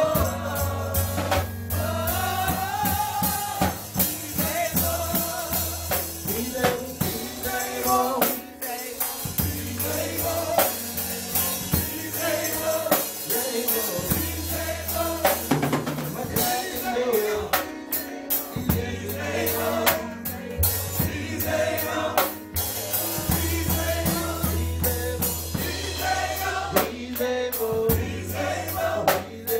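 Live gospel praise-and-worship song: a small group of singers on microphones, backed by drums and a low bass line that holds each note for a few seconds before shifting.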